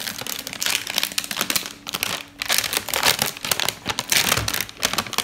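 Crinkling and crackling of a toy ball's wrapper as it is peeled open by hand, in irregular bursts.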